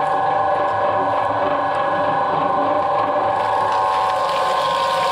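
Twin-shaft shredder running, its motor and cutter shafts giving a steady whine with a few held tones. Near the end a coconut shell lands on the turning blades and a rough crackle joins in.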